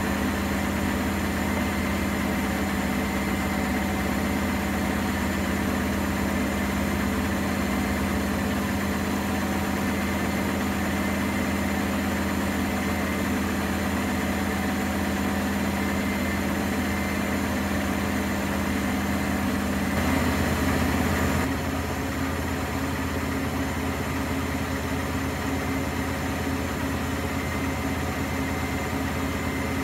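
Commercial front-loading washing machine (Nortec/Primus P6) spinning its drum fast, a steady motor and drum hum. About 20 seconds in it swells briefly, then the pitch of the hum changes and it runs on slightly quieter, a change in spin speed.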